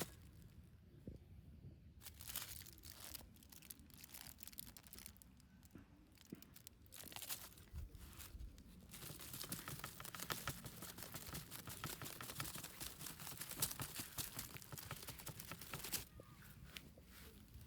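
Toy packaging being handled, crinkling and tearing during an unboxing, with a long stretch of dense crackling in the middle.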